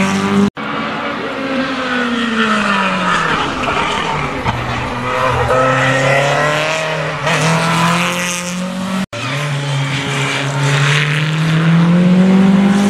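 Single-seater racing car engines at full effort through a hillclimb hairpin: the engine note falls as a car slows for the bend, then climbs steeply as it accelerates out. The sound cuts off suddenly twice, where one pass gives way to the next.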